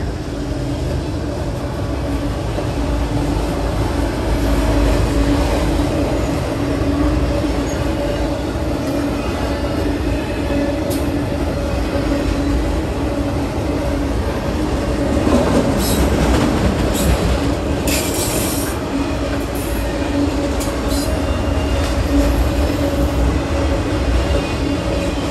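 Freight train autorack cars rolling past at a grade crossing: a steady, loud rumble of steel wheels on rail with a constant hum. About two-thirds of the way through come a few short, high-pitched screeches.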